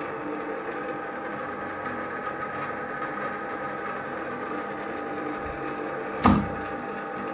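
Strands S32M geared-head drill press running steadily, its gearbox giving a constant hum with a few steady whining tones. About six seconds in there is one sharp click as a hand works a lever on the head.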